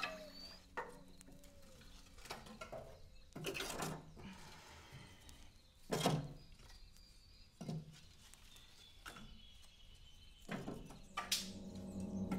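Wood fire crackling in a wood-burning kitchen stove: about a dozen scattered sharp cracks and pops at uneven intervals, the loudest about halfway through.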